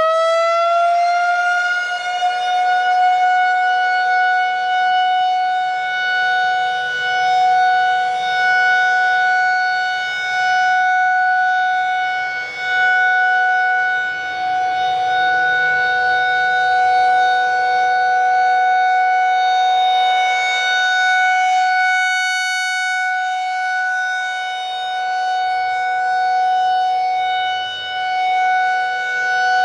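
Federal Signal 2001-SRN electromechanical warning siren. It finishes winding up to full pitch in the first couple of seconds, then holds a steady single-tone wail. Its loudness swells and fades about every three seconds as the rotating head sweeps past.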